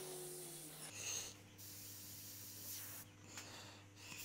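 Gravity-feed airbrush spraying paint, an airy hiss that comes in short passes with brief stops between them, loudest about a second in. Under it a low tone slides down in the first second, then gives way to a steady low hum.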